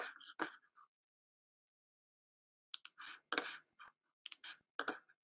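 Computer keyboard clicks, faint at first, then after a two-second lull in irregular runs of typing from about three seconds in.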